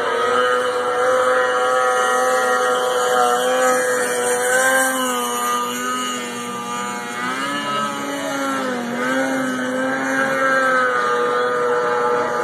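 Snowmobile engine running at high revs as the sled skims across open water, its pitch holding steady, then dipping and rising a few times around the middle before it steadies again.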